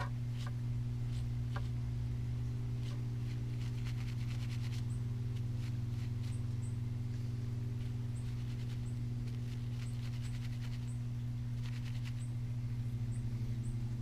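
A steady low hum, with two stretches of faint, rapid crackling about three and twelve seconds in as steel wool is held against a battery's terminals and sparks.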